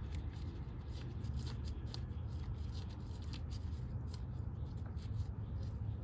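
Faint, irregular rubbing and light scraping as a gloved hand wipes around a motorcycle engine's refitted oil drain plug, over a steady low background rumble.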